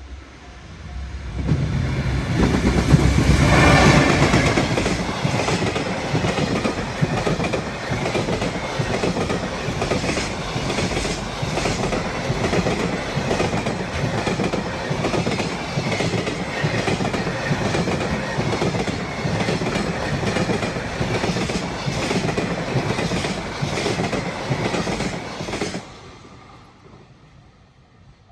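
An EF210 electric locomotive hauling a container freight train past a level crossing. A loud rush comes as the locomotive goes by in the first few seconds. Then a long run of wagon wheels clicks over the rail joints in a steady rhythm, cutting off sharply near the end as the last wagon passes.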